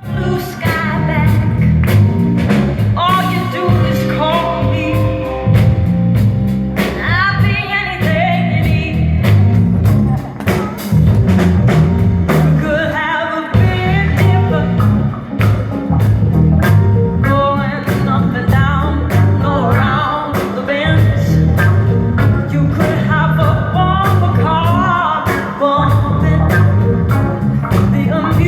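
A live band playing a funky rock song with heavy bass and drums while a woman sings lead, recorded on a cell phone.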